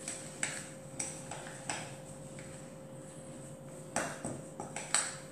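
A spoon clinking and scraping against a glass mixing bowl while stirring a thick ricotta and coconut mixture: a few scattered taps, a quieter stretch, then a quicker run of clinks near the end. A faint steady hum lies underneath.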